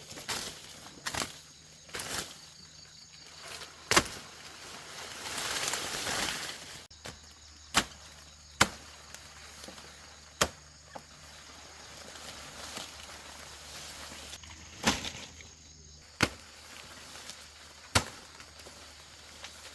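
Sugarcane stalks being chopped with a blade: about nine sharp chopping strikes at irregular intervals, with a longer noisy swell between the strikes about five seconds in.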